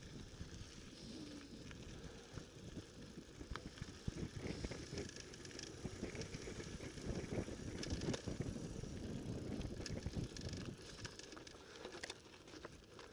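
Mountain bike riding down a loose dirt and gravel trail: tyres crunching over stones with the frame rattling and many small clicks and knocks. It gets louder from about four seconds in to about eleven seconds, then eases.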